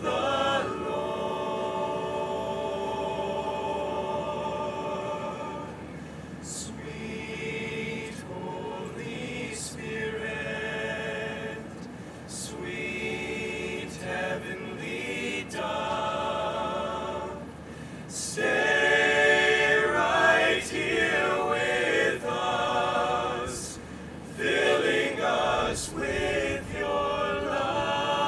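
An all-male a cappella group singing, several voices in harmony with no instruments, growing louder about two-thirds of the way through.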